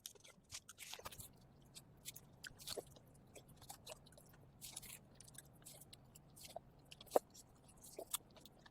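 Faint eating sounds of someone eating panta bhat, soaked fermented rice: wet chewing and mouth smacks with many short, irregular clicks and crunches.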